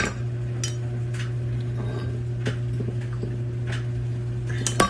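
Metal tongs clinking and knocking against a crucible while working loose leftover copper dross: a few sharp separate knocks, closer together near the end, over a steady low hum.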